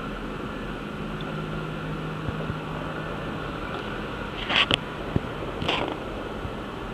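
Steady background din at a fireworks display, with two short, sharp sounds about a second apart about two-thirds of the way through.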